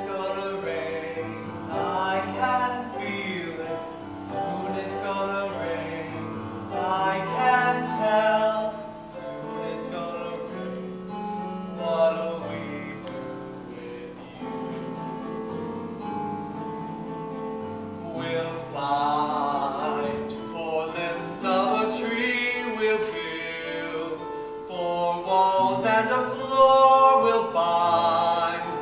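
A musical-theatre duet sung live on stage by a young man and a young woman over light instrumental accompaniment, picked up by a camera in the audience.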